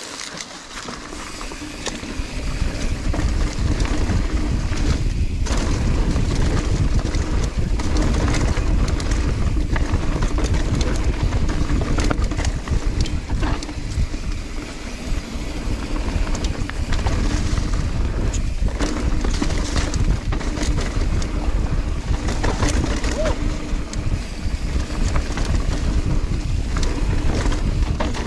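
Mountain bike descending dirt singletrack: wind buffeting the camera microphone and tyres rumbling over dirt and leaves, with frequent clicks and rattles from the bike over roots and rocks. It grows louder about two seconds in as the bike picks up speed.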